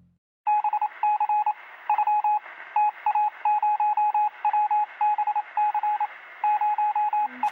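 Rapid electronic beeping: one mid-pitched tone pulsed on and off in quick clusters, like telephone keypad tones, starting about half a second in.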